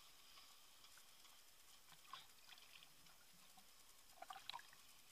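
Near silence, with faint splashing and trickling of shallow water around the camera and a few small splashes near the end.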